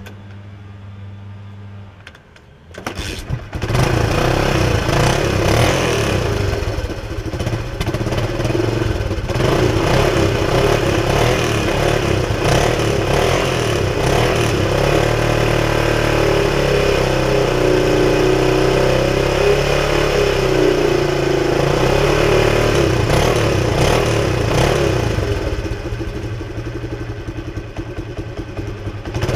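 1976 Honda XL175's single-cylinder four-stroke engine starting on the choke about three seconds in, then running, with the revs rising and falling in the middle and easing back toward idle near the end.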